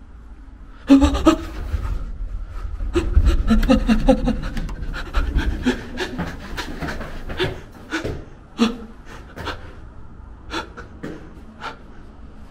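A frightened person panting and gasping hard and fast, with short voiced catches in the breath. It starts suddenly about a second in and thins out to separate sharp breaths in the second half. Low rumbling from the handheld phone being jostled runs under the first half.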